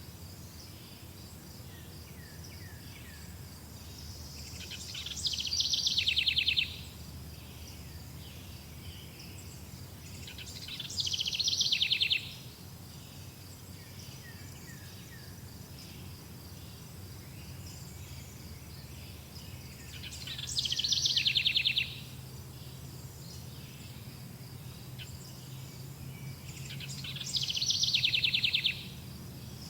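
A songbird sings a rapid, high trilled song about two seconds long four times, each swelling in loudness and then stopping abruptly. Underneath runs a steady high-pitched insect drone and a faint low rumble.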